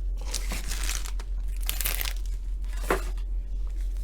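Foil wrapper of a trading-card pack crinkling in short bursts as it is torn open, three or so rustles over a few seconds.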